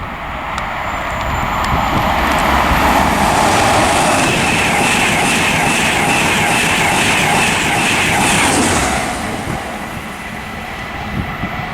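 An InterCity 225 express, a Class 91 electric locomotive with Mark 4 coaches and driving van trailer, passing through the station at speed. It builds to a loud rush of wheels and air with a steady rhythmic clatter of wheels, then fades away after about nine seconds.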